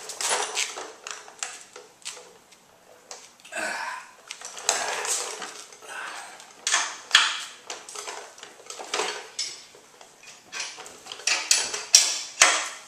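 Steel hand tools clinking and scraping in irregular strokes: a 24 mm wrench joined to a spark plug wrench from the stock toolkit, working a motorcycle's rear axle nut.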